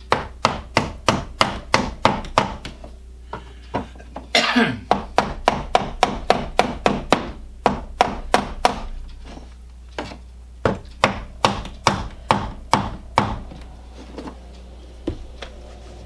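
Small hammer tapping wooden window trim into place along a window sash: quick light taps, about three a second, in three runs with short pauses between, and one last tap near the end.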